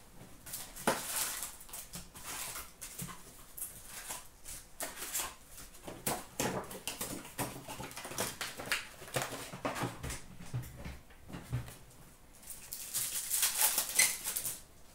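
Upper Deck hockey card packs being torn open by hand, their wrappers crinkling and crackling, with cards being handled. The crackling comes as a dense run of short rustles and is loudest near the end.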